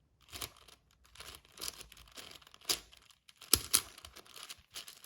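A plastic 6x6 Rubik's cube having its layers turned by hand: a run of irregular scraping clicks, with two sharper clacks about three and a half seconds in.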